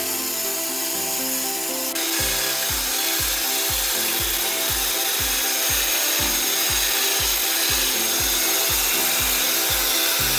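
Background music with a steady beat of about two pulses a second, which starts about two seconds in, over a continuous rasping sound of a tool working wood.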